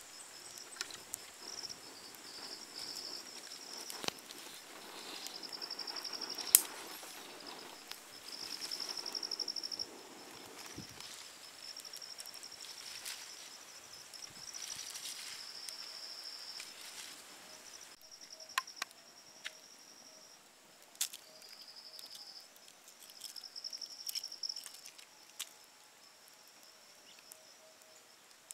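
An insect chirring in repeated high, pulsing trills, each lasting about a second, with a few sharp clicks and knocks scattered through, the loudest about six and a half seconds in.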